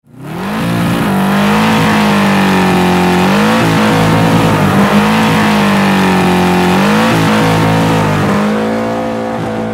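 Car engine held at high revs during a burnout, the rear drag tyre spinning on the pavement. The engine note steps up in pitch twice, about three and a half and seven seconds in, and eases off slightly near the end.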